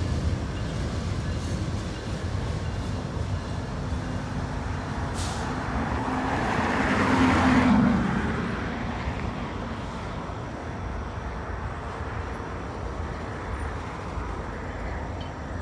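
Freight train's tank cars rolling past below: a steady low rumble of wheels on rail. A louder swell of rushing noise builds and fades about six to eight seconds in.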